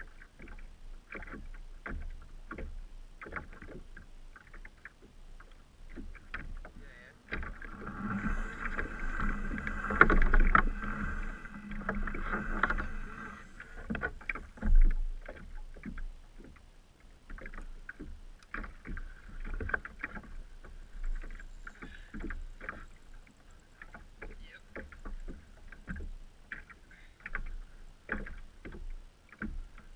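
Water slapping against a fishing kayak's hull with frequent small knocks from the boat and its gear. A louder steady buzzing runs for about six seconds in the middle.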